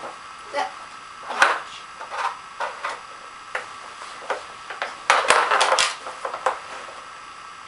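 Plastic Dog Twister puzzle toy clicking and clattering as a dog noses and paws at its sliders. The knocks come irregularly, with a busy run of clatter about five seconds in.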